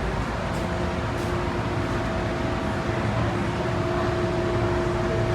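MTR M-Train electric train running into a station: steady wheel and running rumble with two constant hum tones from its electrical equipment, which break off briefly about three seconds in.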